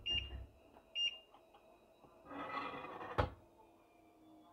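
Two short electronic beeps about a second apart, from the touch controls of a glass hob. Then comes a rustling scrape, ending in a sharp clunk about three seconds in as a ceramic bowl is set down on the hard surface.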